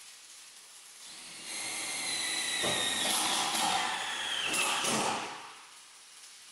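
Handheld power tool working on structural steel: a high whine starts about a second and a half in, drops in pitch near the four-second mark as it bears down, and stops about five seconds in.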